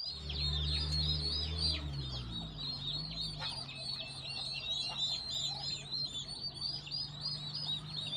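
A brood of turkey poults peeping continuously, many short high chirps overlapping. A low steady hum runs underneath, wavering in pitch in the first few seconds.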